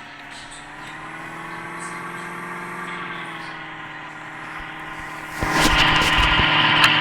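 Porsche engine pulling at low revs, its pitch rising a little and easing back, then about five seconds in it is revved hard and gets much louder and rougher as the car is driven up a slope.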